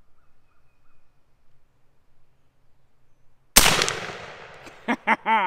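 A single shot from an AirForce precharged pneumatic air rifle about three and a half seconds in: one sharp crack with a tail that dies away over about a second.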